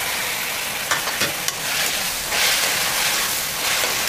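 Chopped onions, green chillies and just-added tomatoes sizzling in hot oil in a metal kadai, a steady sizzle as they are stirred. A slotted metal ladle clicks and scrapes against the pan a few times about a second in.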